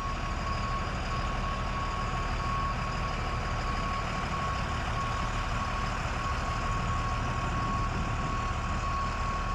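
Aircraft tow tractor's engine running steadily as it tows a twin-engine transport plane, a low rumble, with a high electronic warning tone that sounds almost continuously, broken by short gaps.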